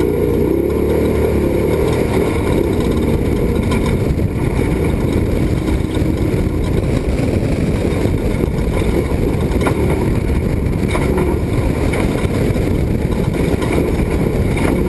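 Off-road race truck driving hard over desert terrain: a steady, loud mix of engine and road noise, with a few faint knocks from the rough ground.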